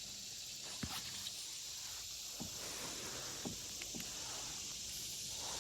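Steady high hiss of outdoor background sound, with a few faint short ticks.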